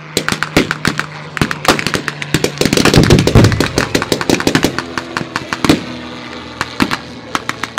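Blank gunfire from reenactors' rifles and machine guns: rapid strings of shots throughout. A low-flying propeller aircraft's engine runs beneath them, loudest about three seconds in as the plane passes.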